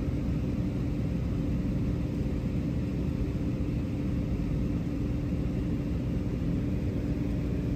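Cessna 180's six-cylinder piston engine and propeller droning steadily in cruise flight, heard from inside the cabin as an even low rumble with a steady hum.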